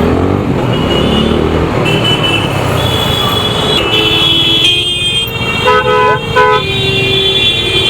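Vehicle horns honking in congested city traffic over steady road and wind noise from a moving motorcycle, with two short horn blasts about six seconds in.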